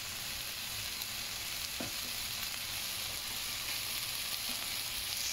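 Stir-fry of black wood ear mushrooms, scallions and beef sizzling steadily in a hot nonstick wok, with a wooden spatula stirring through it.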